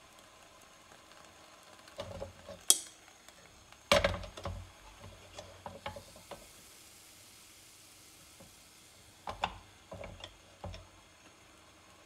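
Metal clanks and clicks of a CHUMS cast-aluminium hot sandwich cooker being turned over on the grate of a portable gas stove, then opened a crack and shut again. A faint sizzle of frying takoyaki can be heard in between. The loudest knocks come about two to four seconds in, with a second cluster of clicks near the end.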